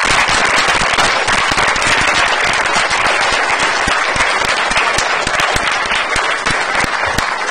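Lecture-hall audience applauding, a dense, steady clapping that begins to thin out near the end.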